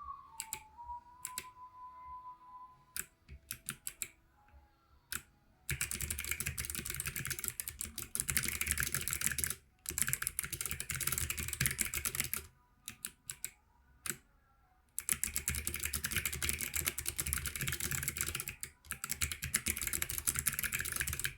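Planck EZ keyboard with clicky Kailh Box White switches being typed on. The first few seconds are single, spaced keystrokes. Then come two long runs of fast continuous typing, each broken by short pauses and a few scattered key presses.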